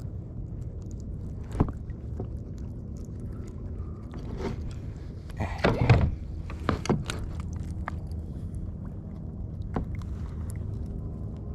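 Knocks and scrapes of fishing gear being handled in a small boat, over a steady low rumble of wind on the microphone; the loudest cluster of knocks comes about six seconds in.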